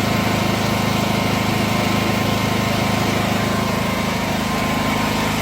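Husqvarna 8.5 kVA generator's engine running steadily on LP gas, fed through a dual-carburettor gas conversion kit.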